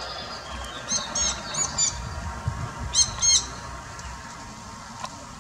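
Jandaya parakeets giving harsh, shrill squawks: four calls in quick succession about a second in, then two more a little after three seconds.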